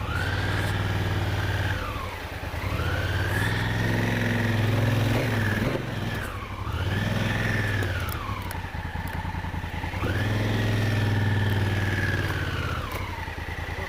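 Adventure motorcycle engine revved in repeated bursts, its pitch rising, holding and dropping back about four times.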